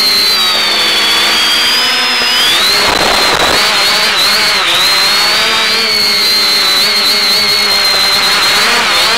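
Motors of an X550AIOP quadcopter whining in flight, heard through the analog FPV video downlink: several separate pitches drift up and down together as the throttle changes. A short burst of hiss cuts in about three seconds in.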